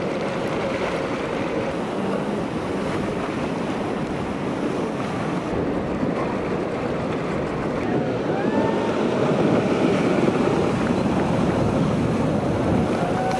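Large ocean waves breaking in heavy surf, with steady wind noise on the microphone.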